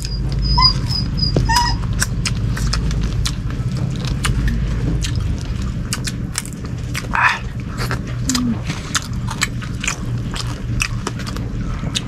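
A dog whining and whimpering to beg for food: a thin high whine near the start, then a few short cries later. Throughout run the clicks and smacks of people eating with their hands, over a steady low hum.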